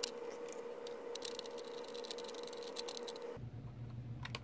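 Faint scattered clicks and rattles of a screwdriver turning a long screw through the plastic pushers of two Nerf Stryfe blasters, with light handling of the plastic parts. A faint steady hum lies underneath and stops a little after three seconds in.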